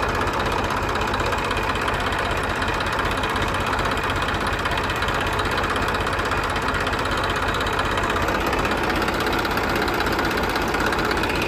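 A small engine running steadily at a constant speed, with a fast, even pulsing.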